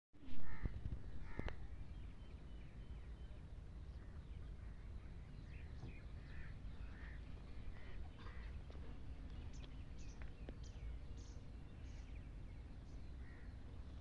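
Scattered short bird calls, with a quick run of high chirps about ten seconds in, over a steady low rumble. A sudden thump sounds right at the start.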